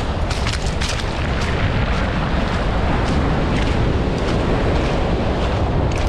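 Strong wind buffeting the microphone with a heavy, constant low rumble, over the noise of breaking sea surf.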